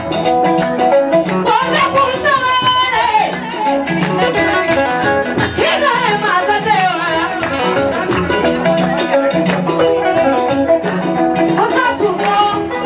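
A woman singing through a microphone over loud amplified music with a steady beat. Her voice slides and bends through long, drawn-out phrases.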